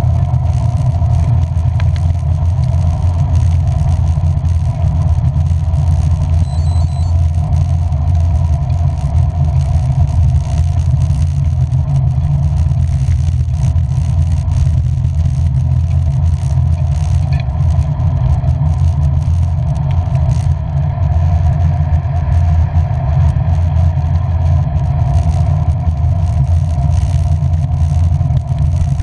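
Steady low road rumble of a vehicle being driven in the rain, unchanging throughout.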